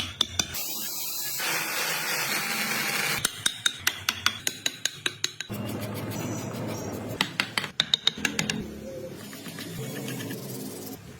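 Three runs of quick, light taps, several a second, with a steady hiss between them, typical of small hammer taps on wood.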